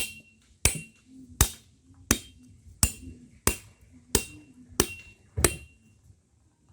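A coconut being broken open by hand, struck sharply about nine times in a steady rhythm, some strikes leaving a brief ring. The strikes stop about five and a half seconds in.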